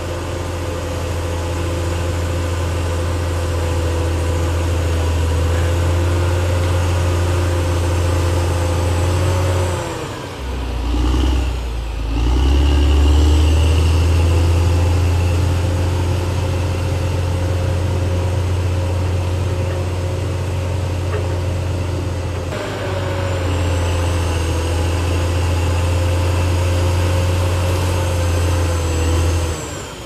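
Caterpillar D6R XL bulldozer's diesel engine running steadily under work. The engine note sags and recovers about ten seconds in, then sags again near the end.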